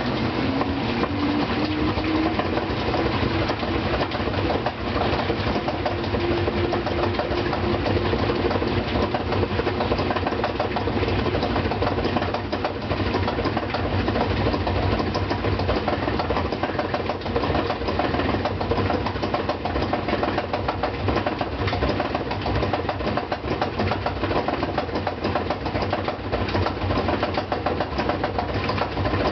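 GE washing machine spinning up on a load of two blankets: a motor whine rises in pitch over the first few seconds, then a rapid, extremely loud knocking runs on through the spin. A service technician later traced the knocking to the two screws holding the concrete counterweight, which had never been tightened.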